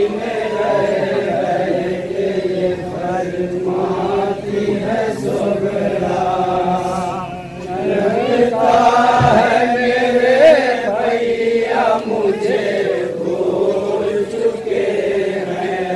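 Men's voices chanting a noha, a Shia mourning elegy in Urdu, in chorus, with held, wavering notes.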